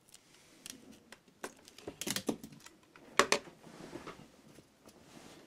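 Aluminium foil crinkling and rustling as a foil-wrapped pen is handled, with a few sharper clicks and ticks about two and three seconds in.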